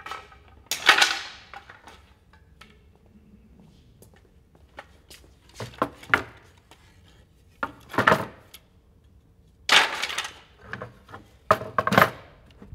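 Wooden battens knocking and clattering against each other and on an OSB workbench as they are gathered up and laid down. A scatter of sharp wooden knocks, loudest about a second in and again in the last few seconds.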